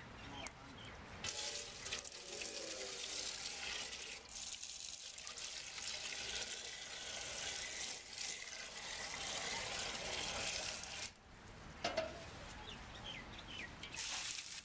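Running water, as from a tap, starting about a second in and cutting off about eleven seconds in, then running briefly again near the end.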